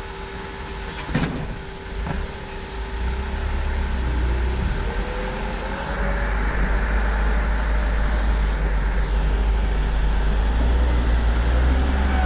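A vehicle's engine running with a steady deep rumble that grows louder a few seconds in, with two short knocks in the first couple of seconds.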